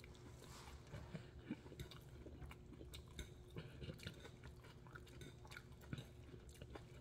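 Faint close-up chewing of vegetable noodles, with many small irregular clicks from the mouth and from a fork working the noodles on the plate.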